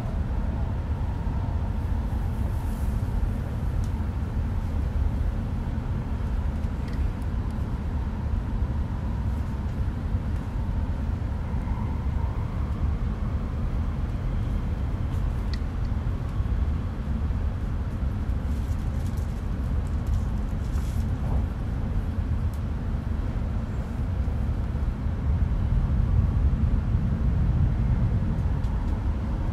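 Steady low rumble of running noise heard inside an E5-series Shinkansen car. Near the end it grows louder as another Shinkansen train passes close alongside.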